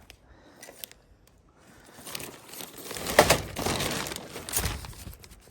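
A bag being handled and rummaged through, rustling and crinkling, with a couple of sharp knocks as its contents shift.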